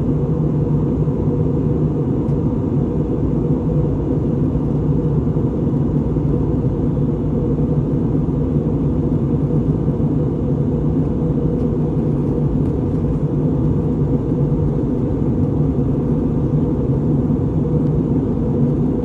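Steady low rumble inside the cabin of an Airbus A320neo airliner, engine and airflow noise holding an even level.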